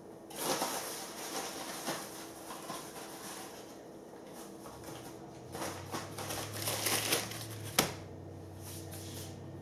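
Brown paper bag rustling and crinkling in irregular bursts as it is handled, with one sharp tap just before the end.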